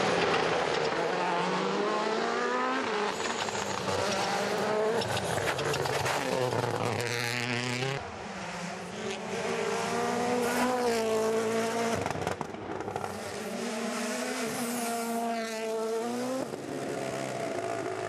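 Rally cars, among them a Hyundai i20 N Rally1, at full throttle on tarmac stage roads, their turbocharged engines revving hard. The pitch climbs and drops with each gear change. Cars sweep past about seven seconds in and again near the end, and the sound changes abruptly from one shot to the next near 8 and 12 seconds in.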